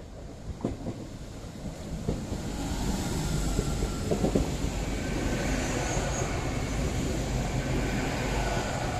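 GWR Hitachi Class 802 bi-mode train running into the platform, its noise rising over the first few seconds and then holding steady as the coaches pass close by. There are a few sharp wheel clicks over rail joints as it comes in.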